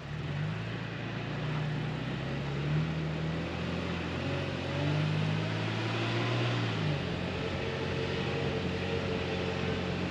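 Toyota truck's engine running at low speed on a dirt track, its pitch rising and falling a little a few times, over a steady rush of noise.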